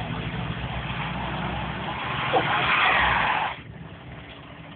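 Rigid lorry's diesel engine running under the driver's throttle while its drive wheels spin on snow, making a rising hiss that cuts off abruptly about three and a half seconds in. The lorry cannot find grip on the snowy slope.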